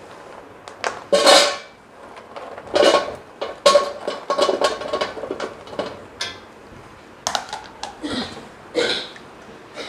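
Frozen french fries being tipped from a plate into an air fryer's metal basket, clattering in a series of irregular bursts, some with a short metallic ring.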